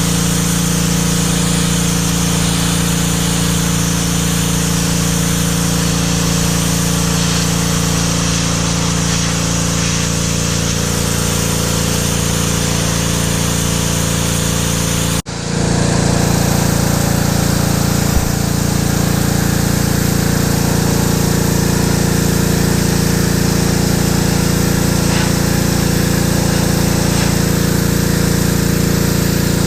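PowerStroke 2200 PSI gas pressure washer running steadily under load, its small engine's even drone mixed with the loud hiss of the high-pressure spray through the green concrete nozzle. The sound cuts out for an instant about halfway through, then carries on the same.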